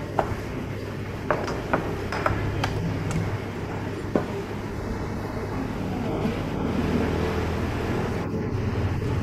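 Glass condiment jars and ceramic bowls clinking as they are handled on a wooden table, about seven sharp clinks in the first few seconds, over a steady low room hum.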